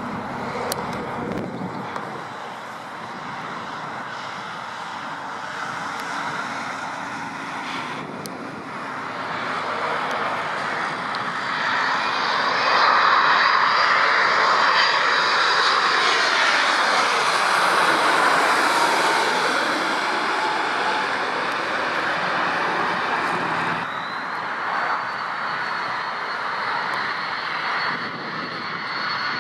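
Jet engines of a heavy airliner on landing approach passing by. The engine sound builds to its loudest about halfway through and then eases off, with a high whine throughout.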